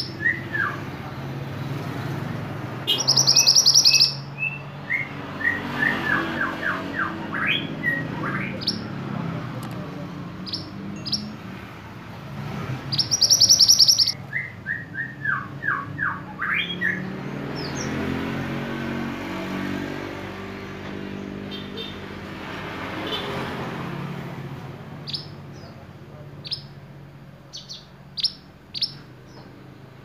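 Male minivet (mantenan) singing: sharp high whistled notes and quick runs of falling notes, twice breaking into a loud rapid trill, about 3 and 13 seconds in. A motor vehicle hums in the background around the middle.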